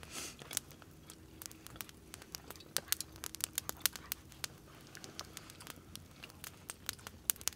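Wood campfire of deadfall poplar crackling, with many irregular sharp pops and ticks.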